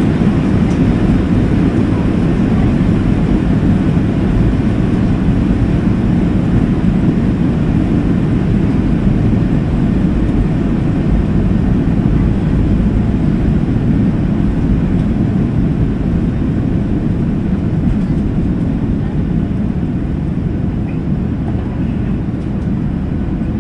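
Boeing 737-700's CFM56-7B jet engines at takeoff thrust, heard from inside the cabin over the wing, with a steady low rumble of the wheels on the runway during the takeoff roll. The noise eases slightly near the end as the plane lifts off.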